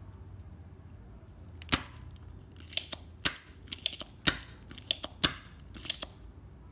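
Spring-loaded desoldering pump (solder sucker) being cocked and fired on a power MOSFET's pins: a string of about a dozen sharp snaps, some with a brief rush of air, starting about a second and a half in and stopping around six seconds.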